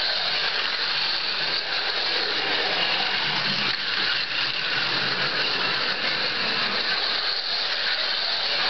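1/43-scale rally slot cars running laps on a Carrera Go plastic track: a continuous high whir of their tiny electric motors and gears, with the rattle of the cars on the track.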